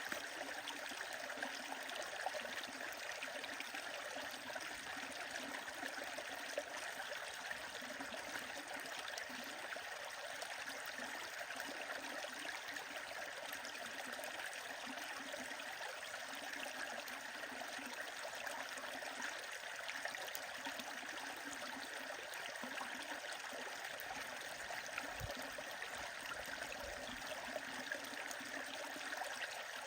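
A stream flowing steadily, its even rush of water running throughout, with occasional faint crackles from a wood fire.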